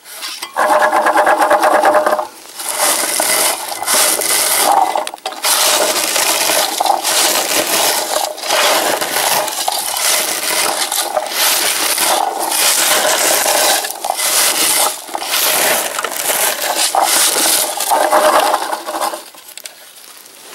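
A plastic berry-picking scoop raked through low cranberry bushes: dense scraping and rustling of leaves and twigs against its comb, with berries rattling into the scoop. Brief pauses between strokes.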